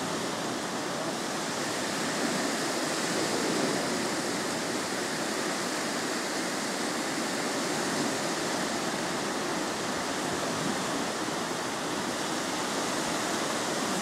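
Small Mediterranean waves breaking and washing up a sandy beach: a steady rushing surf that swells slightly now and then.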